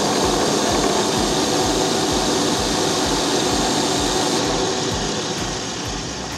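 Electric drill serving as the spindle of a homemade horizontal mortiser, running steadily at full speed. It eases slightly in level near the end.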